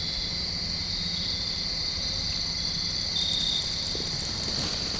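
Evening insect chorus: a continuous high-pitched trill, with a short extra chirp a little after three seconds in.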